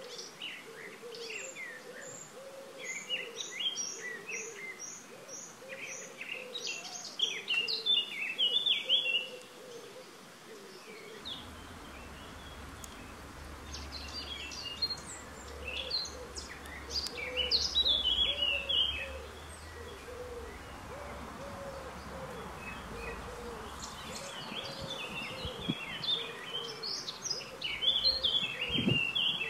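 Birds singing: songbirds in bursts of quick high chirps and trills, over a low call repeated at short, even intervals.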